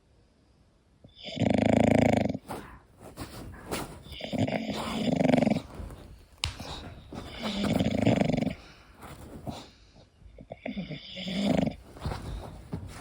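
English bulldog snoring in its sleep: after a second of quiet, four snores come about three seconds apart.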